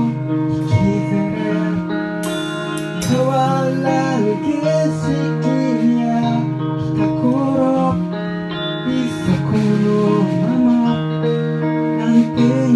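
Music: a song's instrumental intro, guitar chords with a gliding melody line over them.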